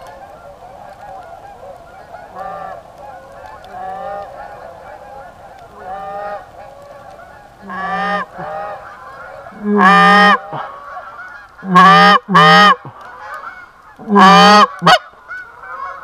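Flock of Canada geese honking, many overlapping calls throughout, with several much louder, close honks in the second half.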